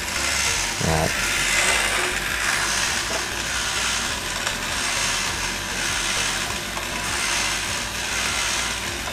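Battery-driven motor and plastic gearbox of a Transformers Encore Omega Supreme toy robot walking: a steady mechanical whirr and grind that swells in a loose rhythm about once a second with its steps.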